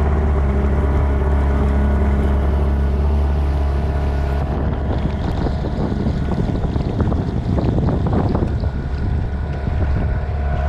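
Boat motor running steadily with a low hum, with wind buffeting the microphone, rougher in the second half.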